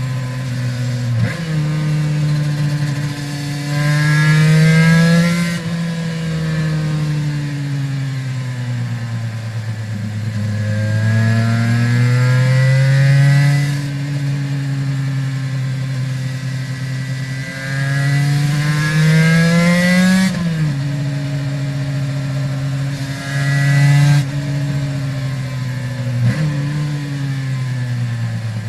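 2001 Aprilia RS 250 two-stroke V-twin with Arrow exhausts, ridden hard. The engine climbs in pitch under throttle four times and falls back off the throttle, with sudden pitch jumps at gear changes.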